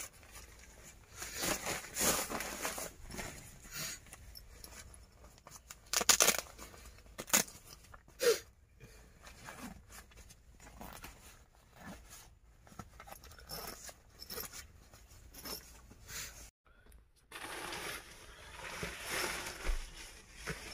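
Irregular rustling and crinkling handling noises with several sharp clicks, then a steadier hiss for the last few seconds.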